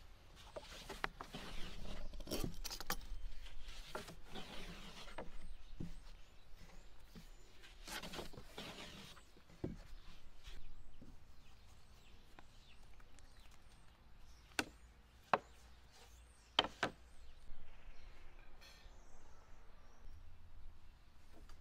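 Fluted pastry wheel rolling and scraping through thin dough on a wooden board, followed by quieter handling and two sharp knocks on the board about two seconds apart.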